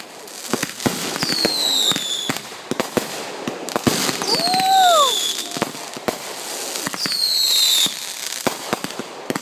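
Fireworks going off: many sharp bangs and crackling pops, with high whistles that fall in pitch, heard about three times.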